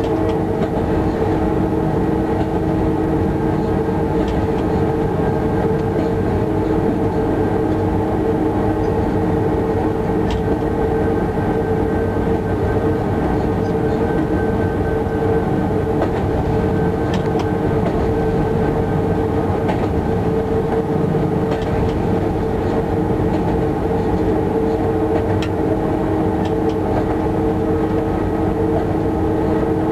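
Electric locomotive running at a steady speed of about 58 km/h, heard inside the cab: a steady hum over the rumble of wheels on the track, with a few sharp clicks scattered through.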